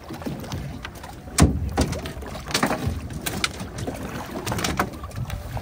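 Irregular knocks and clatter on a small fishing boat, over a steady low rumble, with the loudest knock about a second and a half in.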